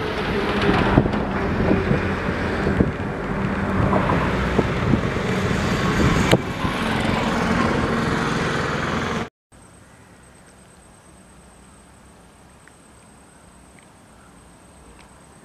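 Running noise of a moving vehicle with wind on the microphone: a loud, even rush over a low hum, with a few sharp knocks. It cuts off abruptly about nine seconds in, leaving a quiet, steady hiss with a faint high whine.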